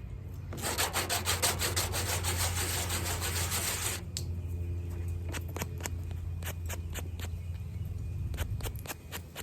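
Hand sanding: sandpaper rubbed in rapid back-and-forth strokes over the back of a small piece for about three seconds, then stopping, followed by scattered light clicks. A steady low hum runs underneath.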